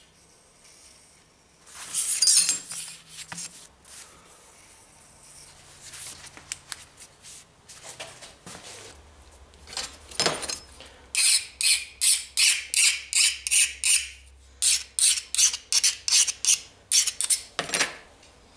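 Steel blade being worked by hand with a file or abrasive: short rubbing strokes, about three a second, in two runs with a short pause between, after some scattered scrapes and clinks.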